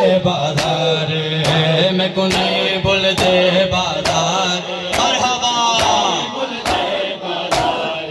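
Men's voices chanting a noha, the Shia lament for Muharram, in a steady sung recitation. Sharp slaps of hands on bare chests (matam) keep an even beat about every three-quarters of a second.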